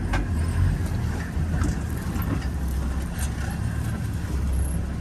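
Safari vehicle engine running as the vehicle drives along, a steady low rumble with scattered rattles and clicks.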